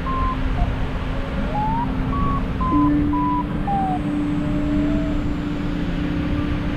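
Wind rushing over the microphone in flight under a paraglider. Over the wind runs a soft line of held tones that glide up and down in pitch, above a low steady hum that steps up a little partway through.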